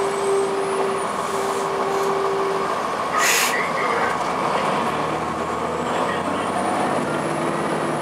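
A 2002 Blue Bird CS transit bus on the move, heard from inside: its Cummins ISC six-cylinder diesel running, with a short hiss of air from the air brakes about three seconds in. In the second half the engine note comes up with a rising whine.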